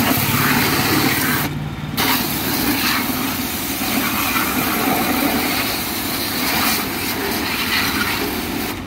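High-pressure washer driven by a triplex plunger pump and electric motor, firing a 0-degree pinpoint jet onto asphalt: a loud, steady hiss of the spray with the pump running underneath. The jet stops for about half a second roughly a second and a half in, then starts again.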